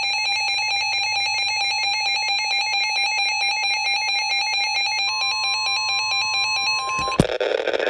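Emergency Alert System attention signal: a harsh, steady two-tone alarm played through a broadcast receiver, announcing a new severe thunderstorm warning. About five seconds in a second, higher steady tone joins it, and both cut off with a click near the end.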